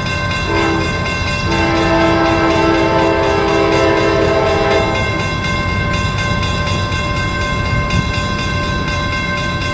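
Distant CSX freight locomotive's air horn: a short blast about half a second in, then a long chord held for about three seconds. Under it runs the low rumble of the train pulling away from a dead stop, with a steady high ringing tone throughout.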